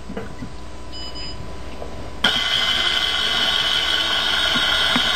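A loud, steady, high-pitched electronic buzzer tone that starts abruptly about two seconds in and holds without change.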